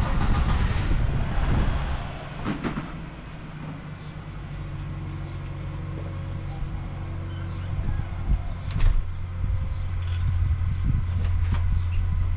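A sliding glass door rolling open, with a few knocks as a board is brought out and set down, over a low steady hum that grows louder through the second half.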